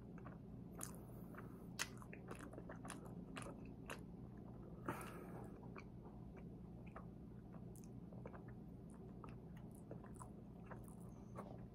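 Close-miked mouth sounds of chewing a chocolate-glazed éclair: soft wet clicks and smacks, thickest in the first few seconds and sparser later, with a longer noisier sound about five seconds in. A steady low hum runs underneath.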